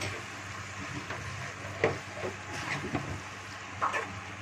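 A spatula stirring and scraping a thick onion-tomato masala in a steel frying pan, with a few light knocks of the spatula against the pan over a faint sizzle from the low flame.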